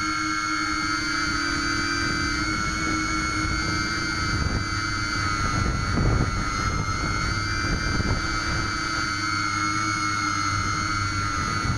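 Brushless motors and propellers of a scratch-built H-frame quadcopter whining steadily in flight, heard through the onboard 808 keychain camera's microphone, with several high tones whose pitch wavers slightly. Low rumbling gusts come and go in the middle.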